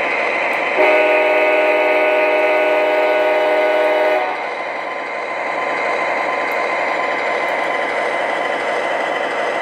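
MTH Rail King ES44AC O gauge model diesel locomotive's onboard sound system playing a steady diesel engine rumble. About a second in, a multi-note horn blast sounds and holds for about three and a half seconds before cutting off.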